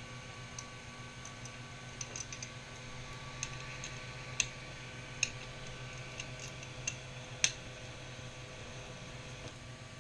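Scattered sharp metallic clicks and taps of screws and a small hand tool as a part is unbolted from an Ender 3 Pro 3D printer, the loudest about halfway through and again a little later. Under them runs the steady hum of the powered printer's cooling fans.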